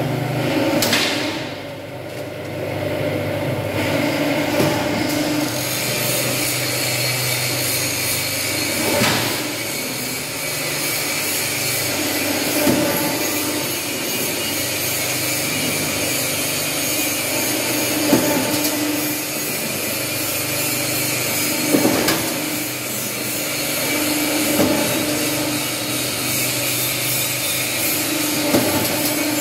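Automatic roll-forming and hydraulic punching machine running: a steady machine hum, with a sharp punch stroke every few seconds.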